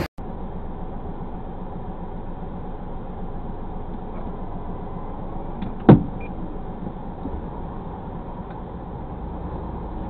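Heavy truck's diesel engine idling steadily, heard inside the tractor cab through the dashcam microphone, with one sharp knock a little before six seconds in.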